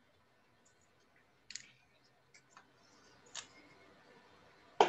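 A few faint, short clicks and taps over quiet room tone, with one sharper click near the end.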